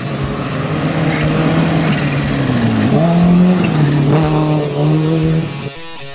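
Subaru rally car's flat-four engine running hard at speed on a gravel stage as the car comes toward and past at full throttle. The engine note dips and climbs again about halfway through, then cuts off near the end.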